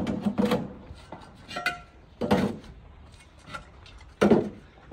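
Clay bricks being set one by one into a wheelbarrow: sharp clunks and clinks with a brief ring, the loudest about every two seconds.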